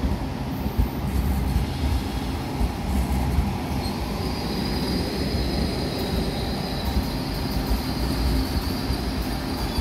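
Frecciarossa ETR500 high-speed train rolling slowly past with a steady low rumble of its wheels on the track. About four seconds in, a thin high squeal from the wheels sets in and holds.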